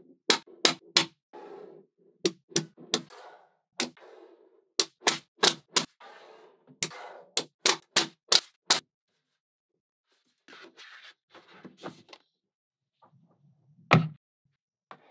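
Small magnetic metal balls clicking sharply as blocks of them are snapped together, a quick series of clicks with rattling and rustling of the balls between them over the first nine seconds. Then quieter handling, and a dull thump about fourteen seconds in as a slab of magnet balls is set down on a board.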